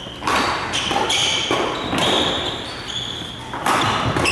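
Badminton rally: sharp racket strikes on the shuttlecock, about three of them, with sneakers squeaking briefly on the court floor in between.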